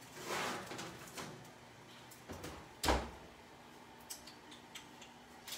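Kitchen handling noises: a short rustle just after the start, then one sharp knock about three seconds in, like a drawer, cupboard door or pan being set down, with a few faint clicks.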